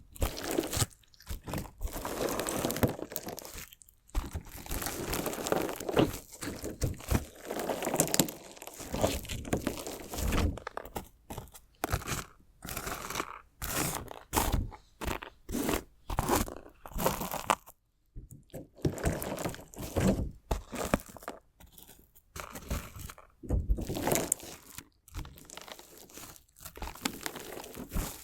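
Crunchy slime with small decorative stones being cut and stabbed, giving irregular bursts of crunching and crackling with brief pauses between strokes.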